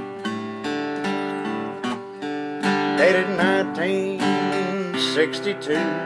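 Acoustic guitar strummed steadily in a slow country ballad, with a man's singing voice coming in about three seconds in.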